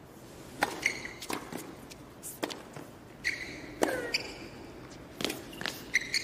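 Tennis rally on a hard court: sharp racket strikes and ball bounces every second or so, with short sneaker squeaks as the players change direction.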